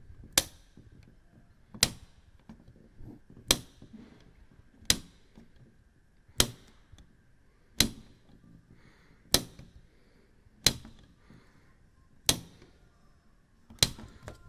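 A switch being flipped on and off over and over: about ten sharp clicks, roughly one every second and a half, over a low background hum.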